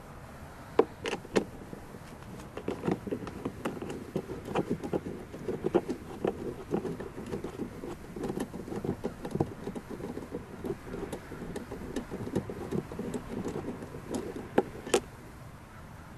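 Hand tools being handled on a scooter: irregular clicks and knocks, dense through the middle, with a sharper knock about a second in and another near the end.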